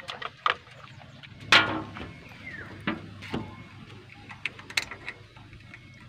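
Scattered light clicks and knocks of handling work: a battery tester's clamp and coiled cable being moved around a backhoe's batteries and engine. One louder knock comes about a second and a half in.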